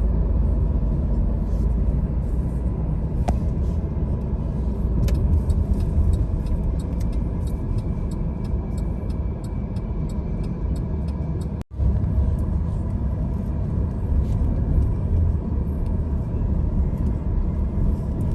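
Steady low road rumble of a moving car heard from inside the cabin, with scattered faint ticks and a brief dropout about twelve seconds in.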